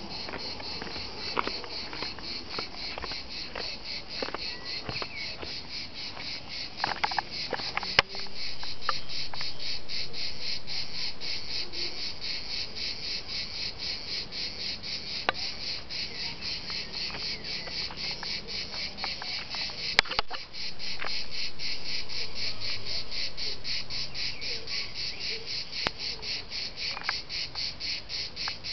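A chorus of cicadas singing, a fast rhythmic pulsing buzz. Twice, about eight and twenty seconds in, it swells suddenly into a louder steady buzz that gradually eases back into the pulsing.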